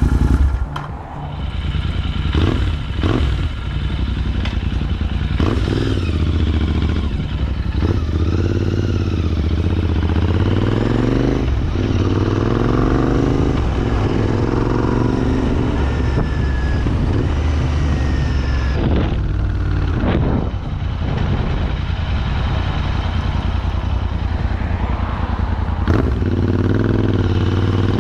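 Royal Enfield Interceptor 650's parallel-twin engine, fitted with a Red Rooster Performance Stellar aftermarket exhaust, running on a ride. The engine pitch rises and falls again and again as it accelerates and eases off, with a few short sharp knocks in between.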